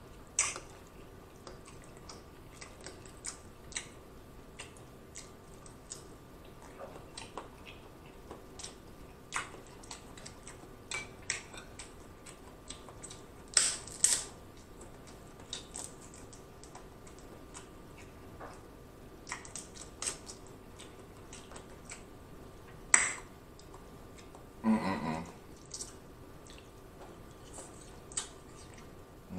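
Close-up eating sounds: scattered mouth clicks and soft chewing, with a king crab leg shell cracked apart by hand about 14 s in, the loudest sound. A sharp click comes near 23 s and a brief low sound just after.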